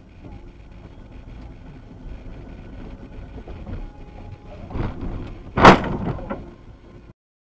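Car driving with a steady low road rumble, then a knock and, about a second later, the loud bang of a vehicle collision, followed by a smaller knock. The sound cuts off suddenly right after.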